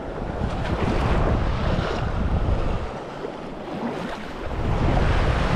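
Surf washing onto the beach with wind buffeting the microphone, a steady rushing noise that swells, eases off midway, then swells again.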